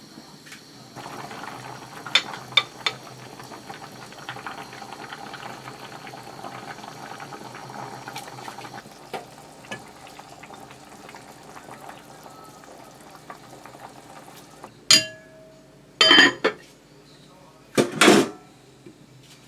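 Kitchen work: a steady hiss like running water or frying, with light clinks of dishes and utensils, followed by several loud knocks and clatters near the end.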